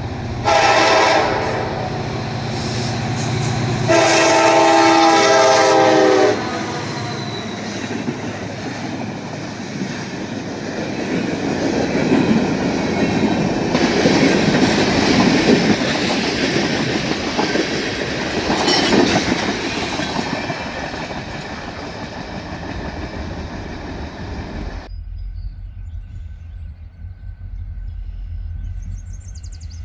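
Diesel freight locomotive horn sounding a short blast, then a longer one a few seconds later, followed by the train rumbling past on the rails, loudest around the middle. Near the end the sound cuts suddenly to a quieter low rumble.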